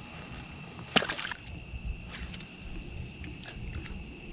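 Night insects calling in a steady high-pitched drone, with one sharp click about a second in.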